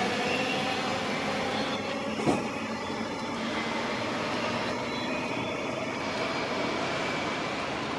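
Queensland Rail electric multiple-unit train running away along the track, its traction whine slowly falling in pitch under a steady hiss of rain. A single sharp knock comes about two seconds in.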